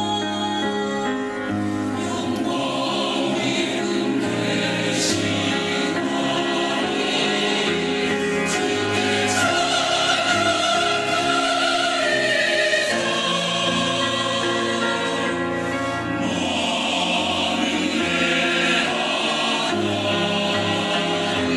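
Church choir singing an anthem in parts with instrumental accompaniment, sustained and steady in loudness.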